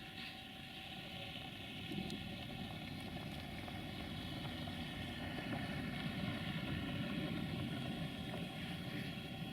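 Engine of a CFR rail maintenance truck (drezină camion DC 061) running steadily, growing slightly louder about halfway through.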